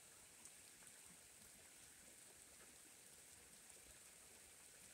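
Faint, steady rain falling on grass: an even hiss with a few soft, scattered drop ticks.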